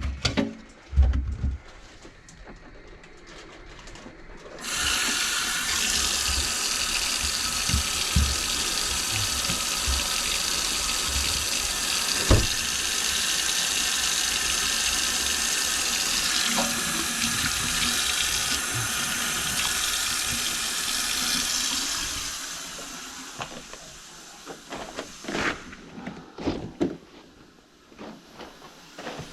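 Water tap running hard into a sink, turned on abruptly about five seconds in and running steadily for about seventeen seconds before it tapers off. A few knocks come before and after it, and there is a single sharp click in the middle.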